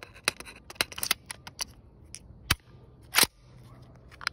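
Metallic clicks and clacks of a bufferless 9mm AR-pattern carbine being worked by hand to clear a failure to feed: the magazine and action are handled, with a sharp clack about two and a half seconds in and a louder crack about three seconds in.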